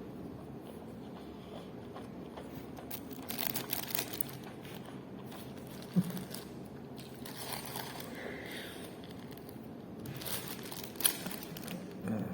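Eating sounds from a takeaway meal: three short bouts of crinkling and crunching, with a sharp click about six seconds in and another near the end, over a low steady room hum.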